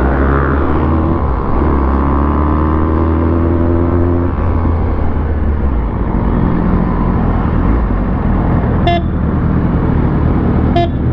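Sport motorcycle engine running under way with wind noise, its pitch falling as it slows after about four seconds. Two short horn beeps come near the end.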